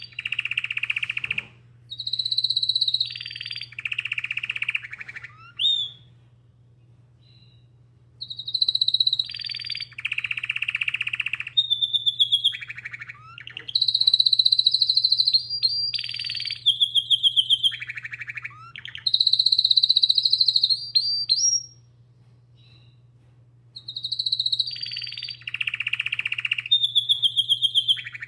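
Domestic canary singing in long phrases of rapid trills, rolling buzzy passages and quick rising whistles, pausing for about two seconds twice, with a steady low hum underneath.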